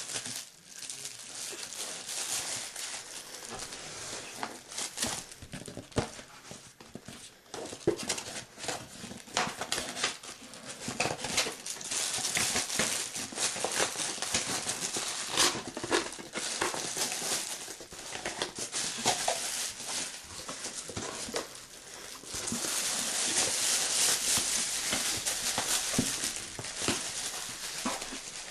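Packaging of a speaker system being handled and unwrapped: rustling and crinkling, with many scattered clicks and knocks, louder in stretches.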